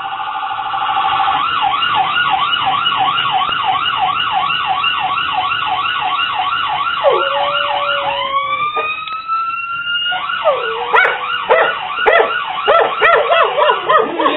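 Police siren in a fast up-and-down yelp, about three or four sweeps a second. From about halfway in, a dog howls along in long sliding howls, and howls and siren overlap near the end.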